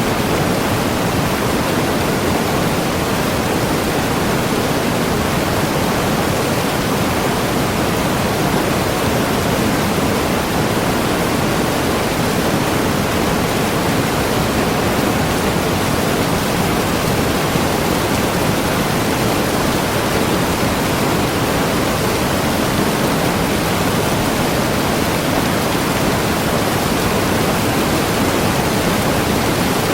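Waterfall: a steady rush of falling water that does not change.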